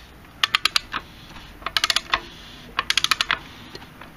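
Socket ratchet loosening the connecting-rod cap nuts: bursts of five or six quick pawl clicks, about one burst a second, as the handle is swung back and forth.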